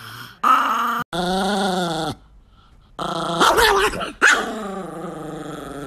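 A Chihuahua growling and grumbling angrily in long, wavering, pitched calls, about four in a row with short breaks, loudest a little past the middle.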